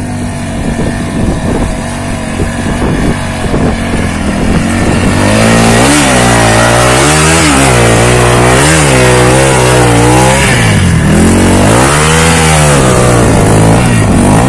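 Adventure motorcycle engine revved hard under load while climbing a loose sand and rock slope. From about five seconds in, the revs rise and fall over and over, roughly once a second.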